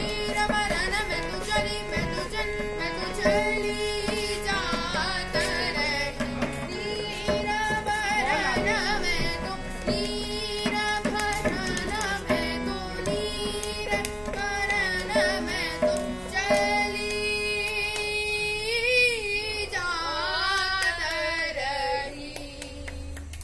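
A boy sings a Hindustani classical vocal in Raag Malkauns, accompanying himself on harmonium, with tabla keeping the rhythm. The music winds down near the end.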